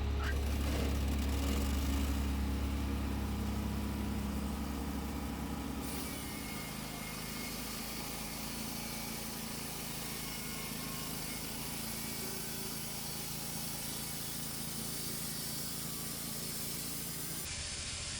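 An engine running steadily with a strong low hum. About six seconds in, the sound changes and a broad hiss joins it.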